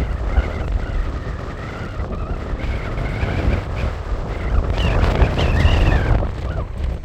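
Strong windstorm gusts buffeting the microphone with a deep rumble, over a wavering high-pitched whistling howl that swells and rises in pitch about five seconds in.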